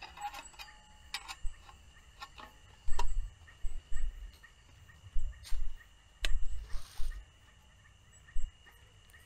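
Thin metal panels of a folding firebox stove clicking and clanking as they are unfolded and slotted together, about ten sharp clicks and knocks with dull handling thumps, the busiest stretch between about three and seven seconds in. A steady high-pitched night chorus runs underneath.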